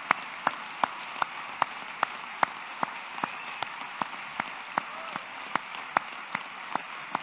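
Audience applauding, a steady patter of many hands, with one person's single claps close to the microphone standing out loud and even, about two and a half a second.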